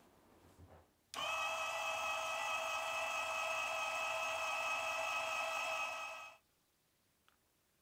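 Small drill press motor running at steady speed, a high whine with no change in pitch, that starts suddenly about a second in and cuts off sharply after about five seconds.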